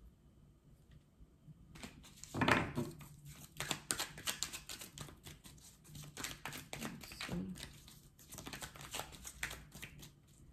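Tarot cards being shuffled and handled: a run of quick papery flicks and rustles starting about two seconds in, the loudest about two and a half seconds in.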